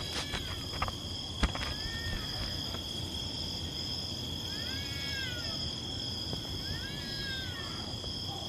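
Crickets chirring steadily at two high pitches, with distant cats yowling over them in three drawn-out cries, each rising and then falling. A few sharp clicks come in the first second or so.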